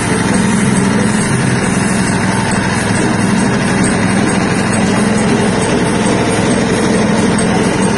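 Motor-driven soybean skin-peeling machine running steadily with an even mechanical hum and rattle.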